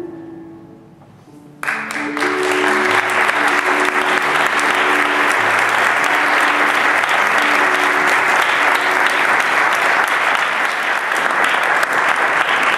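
Theatre audience applauding, the clapping starting suddenly about a second and a half in and holding steady, with background music playing a simple melody under it until about two-thirds of the way through.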